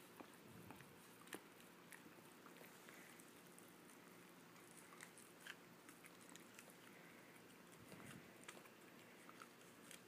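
A dog gnawing kernels off a cob of corn on the cob held in a hand: faint, irregular crunching and chewing clicks.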